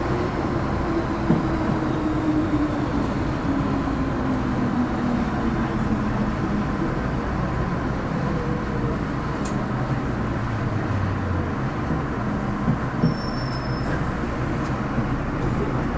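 Onboard running noise of an MTR Metro-Cammell EMU motor car: steady wheel-on-rail rumble with traction motor tones falling in pitch as the train slows. The lowest hum dies out about eleven seconds in.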